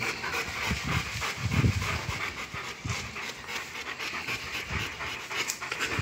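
Rottweilers panting rapidly in excitement, mouths open, with a few short low thuds mixed in.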